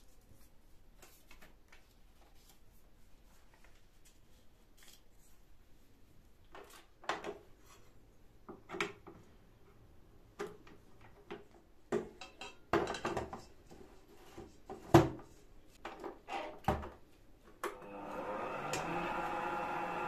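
Sharp clicks and knocks of a stand mixer being handled as its dough hook is fitted and its parts set in place. Near the end water starts pouring steadily from a plastic jug into the stainless steel mixing bowl.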